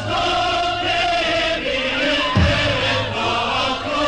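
A crowd of voices chanting together, many pitches overlapping, with a single low thud about two and a half seconds in.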